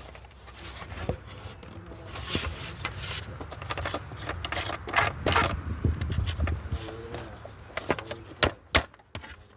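Irregular clicks, taps and scrapes of a screwdriver and hands working on the plastic housing of an electric string trimmer being taken apart.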